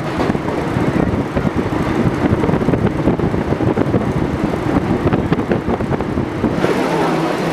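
Vintage New York City subway car running along the track, heard from inside the car: a steady low rumble with frequent rattles and clacks. Near the end the sound brightens and a steady hum comes in.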